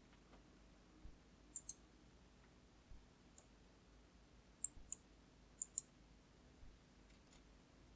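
A few short, sharp clicks at a computer, scattered and some in quick pairs, over faint room tone.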